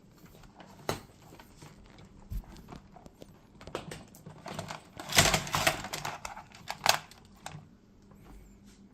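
Hands handling cables and parts: scattered clicks and knocks, with a short rustle about five seconds in and a sharp click just before seven seconds.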